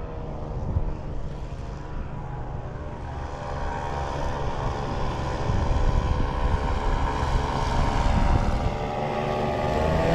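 Powered paraglider's engine and propeller droning, growing steadily louder as it flies closer.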